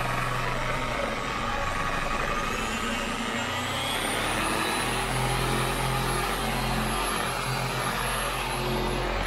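Corded electric orbital polisher with a foam pad running steadily against car paint, its motor whine climbing in pitch a couple of seconds in. It is buffing a mark out of the painted tailgate.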